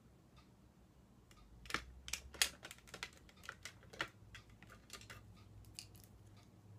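A run of small, sharp clicks and taps, the loudest about two seconds in and again about four seconds in: makeup items and cases being picked up, handled and set down on a table.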